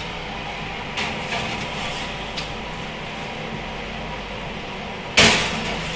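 Ceramic baking dishes handled into an oven: a few light clicks, then about five seconds in a sharp clatter as a dish is set down on the metal wire oven rack, over a steady hum.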